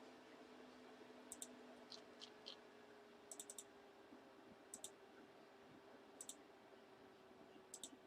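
Faint computer mouse clicks, several of them quick double clicks, spaced irregularly every second or so over a low steady electrical hum.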